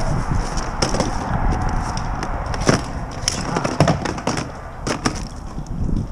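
Irregular knocks and clicks of fishing gear and the landing net being handled against a plastic kayak hull, over a steady low rumble.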